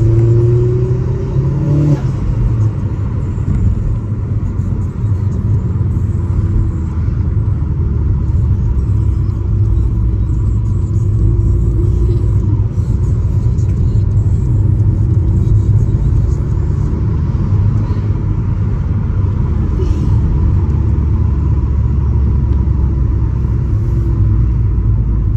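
Stage 3 modified Vauxhall Astra VXR's turbocharged four-cylinder engine heard from inside the cabin, pulling hard with a rising pitch, which drops about two seconds in. Then a steady low drone of engine and road noise as the car drives on.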